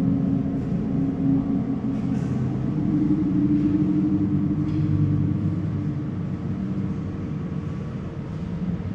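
Low, steady rumbling drone with several held low tones and a few faint crackles, from the soundtrack of a museum projection played over loudspeakers; it fades slightly near the end.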